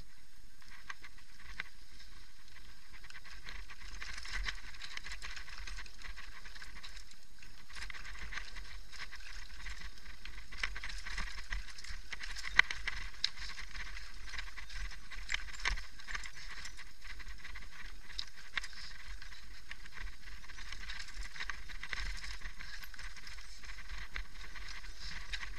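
Mountain bike rolling down a rocky, loose-gravel trail: a steady rattle of tyres over stones and the bike's chain and frame, with frequent sharp knocks, the loudest about halfway through.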